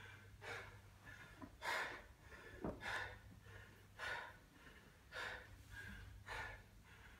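Hard, heavy breathing of an athlete catching breath mid-workout between barbell sets, about one breath a second, over a low steady hum.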